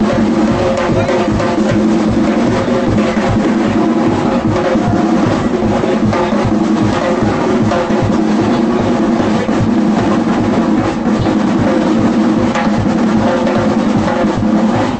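Gombey drumming: snare and bass drums playing a fast, steady, driving rhythm.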